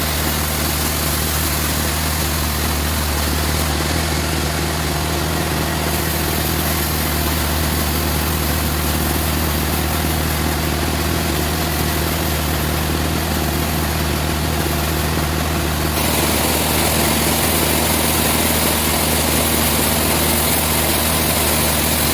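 Sawmill machinery running with a steady low hum and hiss; about 16 s in the hiss gets a little louder.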